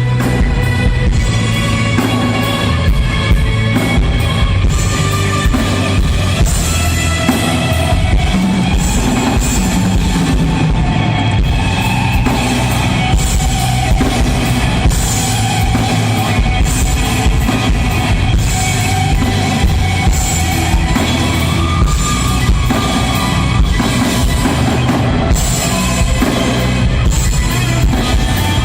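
Rock band playing live at a sound check: a steady drum-kit beat under loud electric guitars.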